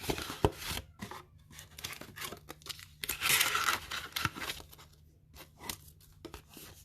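Booster packs and paper envelopes being handled at a table: a run of small clicks and crinkles, with a short tearing sound about three seconds in.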